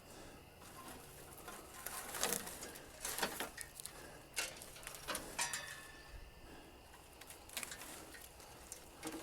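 Faint, scattered clicks, light knocks and rustles of hands working at a machine, a handful of short sounds spaced irregularly about a second apart.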